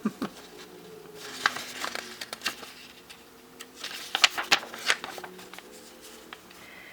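Paper booklet being handled, rustling and crinkling in several short spells, loudest about halfway through and again a little later.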